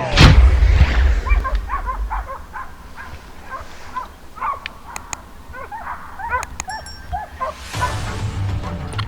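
A loud bang with a rumble dying away, then hunting dogs yelping repeatedly in short rising yips. Music with a steady low beat comes in near the end.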